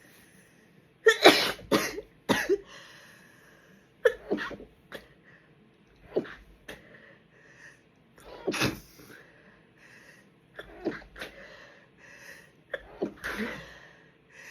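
A person's stifled sneezes, held back to keep quiet. There are three sharp bursts close together a second or two in, the loudest, then further sneezes spaced a couple of seconds apart.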